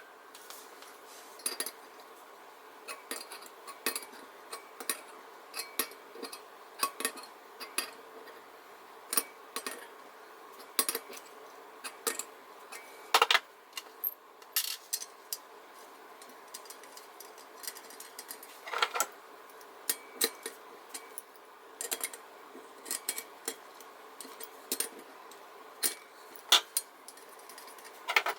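Metal lantern parts and hand tools clicking and clinking irregularly during reassembly of a Coleman 200A gasoline lantern, with a few louder knocks among many light taps.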